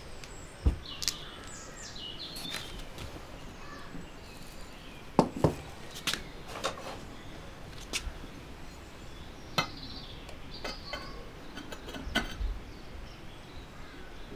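Firebricks being handled and set down around the base of a steel oil-drum kiln: scattered sharp knocks and clinks, a dozen or so spread out, with birds chirping faintly in the background.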